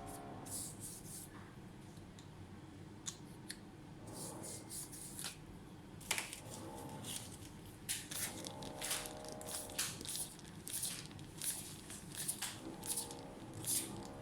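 Short hissy rubbing strokes on a laptop part being cleaned, sparse at first and then about two a second from about halfway.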